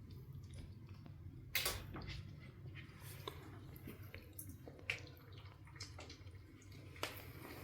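Kittens playing: scattered soft taps and scuffles, the sharpest about a second and a half in, over a low steady room hum.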